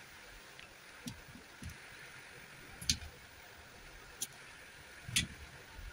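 A few scattered taps and clicks of a metal spoon against a steel plate as cooked moong dal filling is scooped into a dough cup for kachori. The louder knocks come about three seconds in and about five seconds in.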